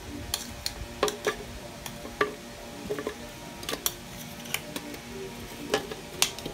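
Fruit chunks, pineapple and banana, dropped into an empty plastic blender jar, each landing with a short hollow knock, about a dozen at irregular intervals. Soft background music runs underneath.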